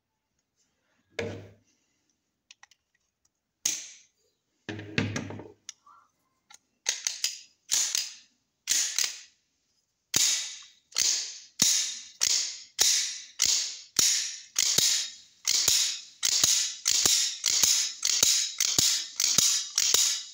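Steel slide of a Pakistani-made 30 bore seven-shot pistol being racked back and forth by hand: a few scattered knocks at first, then a steady run of sharp metallic clacks about one and a half to two a second. The action, stuck with rust before, has just been cleaned and oiled and is being worked in until it moves freely.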